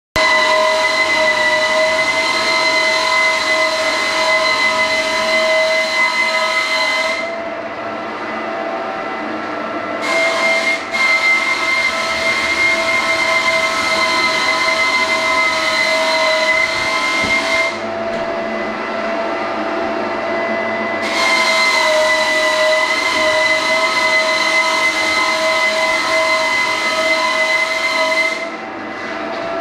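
Electric floor sander running steadily over a timber floor, a constant motor whine with a sanding hiss. The hiss drops away briefly three times while the whine carries on.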